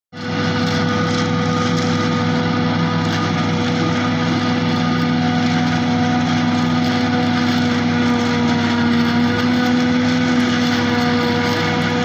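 Claas Jaguar 870 forage harvester working under load as it chops standing maize. Its engine and cutting drum make a loud, steady drone with a few held tones, with no change in pace.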